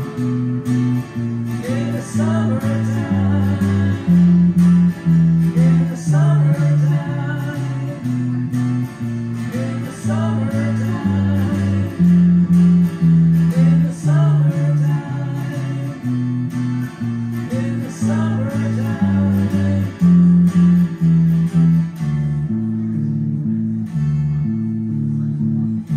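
An acoustic guitar and an electric guitar playing an instrumental tune together: a steady stepping line of low notes under lead phrases with rising bent notes. The lead thins out near the end while the lower accompaniment carries on.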